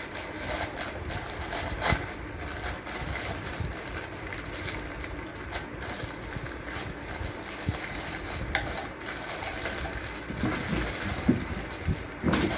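Clear plastic wrapping crinkling and rustling as it is pulled off copper tumblers by hand, with a couple of sharper clicks or knocks near the end.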